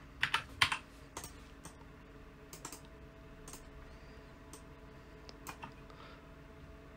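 Computer mouse and keyboard clicks, a scattering of short irregular clicks that are loudest and closest together in the first second, over a faint steady hum.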